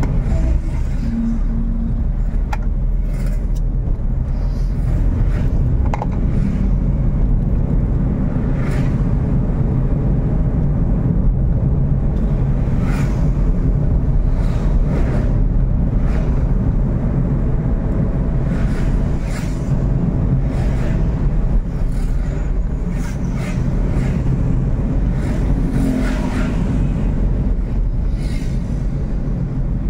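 Steady low road rumble of a vehicle driving along a busy street, with cars and motorcycles briefly swishing past now and then.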